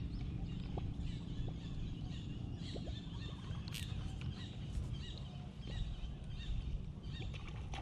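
Outdoor ambience: a steady low rumble with scattered faint bird chirps and a few small clicks.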